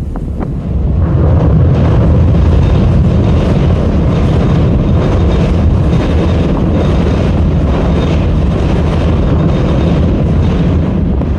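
Wind buffeting the phone's microphone: a loud, steady low rumble that swells about a second in, with a hiss of rustling leaves over it.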